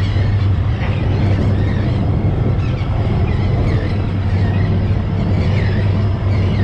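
Shrimp boat's engine running with a steady low drone.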